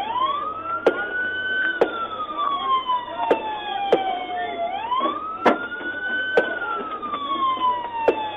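Police siren on a slow wail, two cycles, each rising for under two seconds and falling for about three. About six sharp knocks or pops land over it at uneven intervals.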